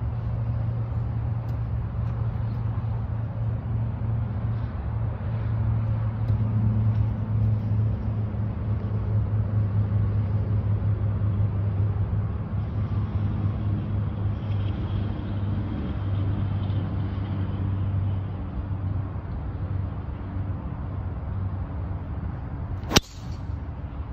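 A driver strikes a teed golf ball: one sharp crack near the end. Under it runs a steady low hum.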